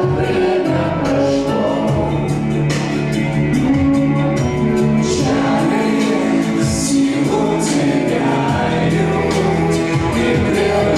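A song playing: music with singing voices, several voices together like a choir.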